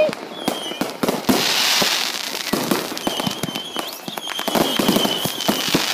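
Fireworks bursting and crackling in many rapid pops, with a thin high whistle through the second half.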